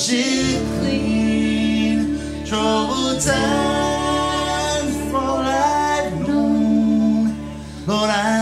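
Live folk song: male and female voices singing long held notes in harmony, with a bowed cello underneath, dropping away briefly near the end before the next phrase.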